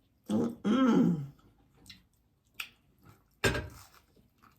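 A person's brief wordless vocal sound, then a single sharp thump about three and a half seconds in.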